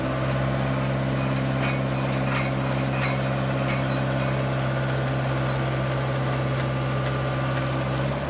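Engine of a mobile boat hoist running steadily at raised revs while it lifts a canal boat in slings. The note drops slightly right at the end.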